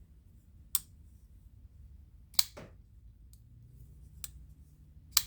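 Civivi Elementum flipper pocket knife being flicked open and shut, giving four sharp metallic clicks about a second and a half apart as the blade snaps into place. The clicks come after the pivot has been cleaned and oiled, and the knife is said to have really good flipping action now.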